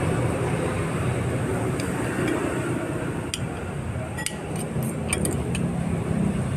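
Street ambience: a steady low vehicle rumble, with a few short light clinks a little past the middle.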